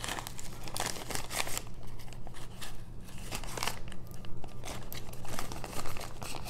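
Thin plastic bags crinkling and rustling in irregular bursts as hands push a drill pen and tweezers into a small clear baggie and fold the plastic toolkit bag.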